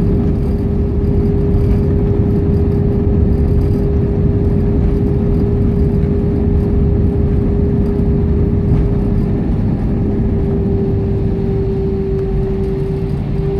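Cabin noise of an Airbus A320 rolling along the runway after touchdown: a loud, steady rumble from the engines and wheels with a constant whine over it, which wavers slightly near the end.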